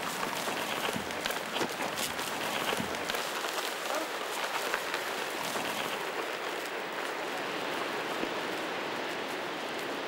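Dry grass and turf crackling and rustling as an ox-drawn wooden ard scratches through it. Many small crackles come in the first half, then a steadier hiss.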